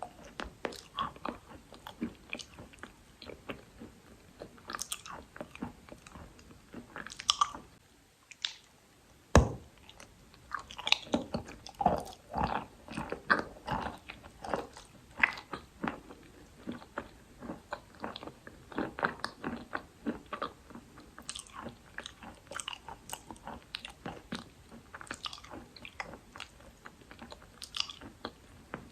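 Someone biting and chewing dry Khrapovsky chalk: a steady run of short crunches and crackles, with one loud sharp crack about nine seconds in after a brief lull.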